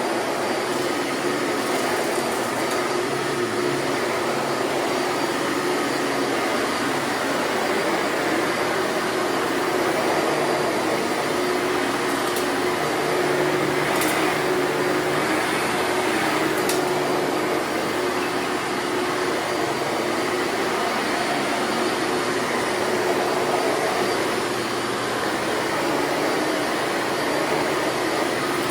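Hoover Elite bagged upright vacuum cleaner running steadily, with an even rushing hum and a constant steady tone in it.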